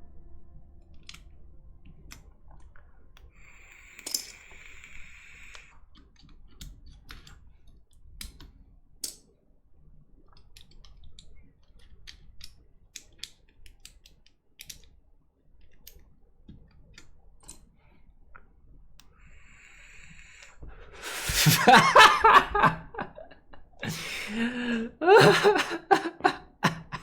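Scattered small plastic clicks and taps from a mechanical keyboard being handled. Near the end a person laughs loudly.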